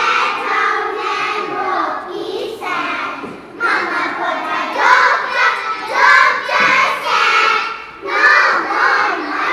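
A group of young children singing together in unison, in phrases with short breaks about a third of the way in and again near the end.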